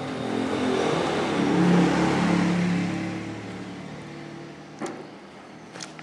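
A motor vehicle passing by on the road, its engine sound swelling to a peak about two seconds in and fading away over the next two seconds. Two sharp clicks near the end.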